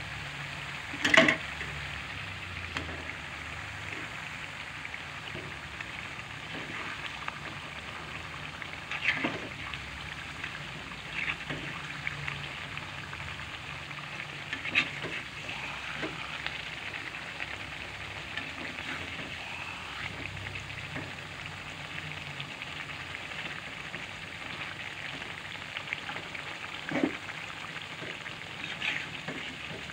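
Red chili balado sauce sizzling in a wok around fried eggs, a steady frying hiss. A metal slotted spatula scrapes and clinks against the pan now and then as the sauce is spooned over, the loudest clink about a second in.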